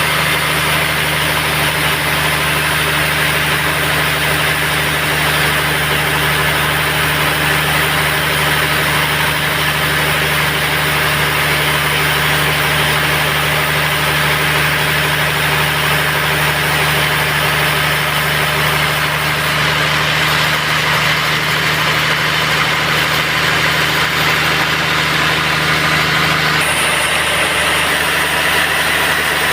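Band sawmill running steadily: a constant motor hum with a high hiss over it. About three seconds before the end the low hum drops away and the sound changes.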